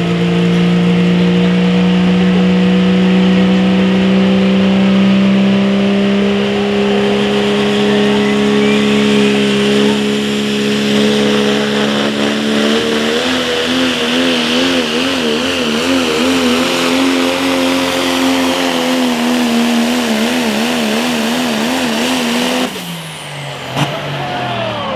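Pro stock turbo-diesel pulling truck's engine at full throttle under load, dragging the sled. Its steady note climbs slowly for about twelve seconds, then the revs waver rapidly up and down. Near the end the note falls away sharply as the throttle comes off.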